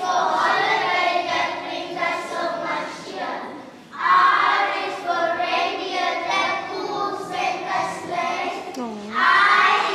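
Children's choir singing a Christmas carol, phrase by phrase with short breaths between lines.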